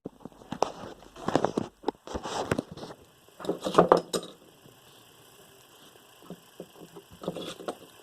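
Irregular clicking and rustling of small parts being handled, in bursts that are loudest in the first half, then a few light ticks near the end.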